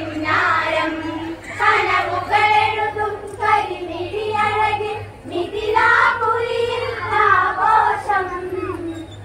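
Voices singing a Malayalam Onamkali folk song together, one melody line bending up and down, with a steady low hum underneath.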